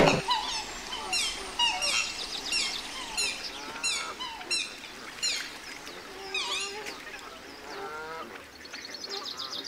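Birds calling: a steady run of short, high, falling chirps about twice a second, with lower gliding calls joining around the middle.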